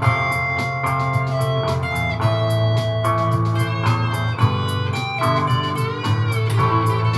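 Godin guitar played live over its own looped guitar layers from a looper pedal, with held notes and a few bent, wavering notes about four seconds in, above a steady bass line and an even beat.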